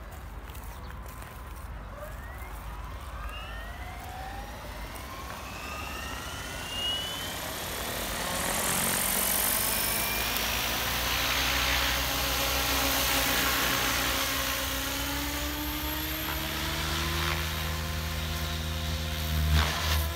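Electric RC helicopter, a SAB Goblin 570 Sports with a Scorpion brushless motor, spooling up. The motor and gear whine rises in pitch and grows louder over the first several seconds as the rotor head comes up to speed, then holds as a steady whine over a low rotor hum.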